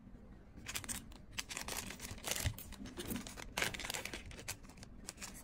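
Clear plastic zip-lock bag being handled and pulled open, with irregular crinkling and rustling of the thin plastic throughout.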